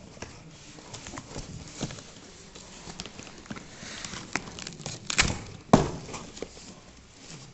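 Hands working a part and its packaging free: scattered small clicks and rustles, then two sharp knocks or snaps about half a second apart a little after five seconds in.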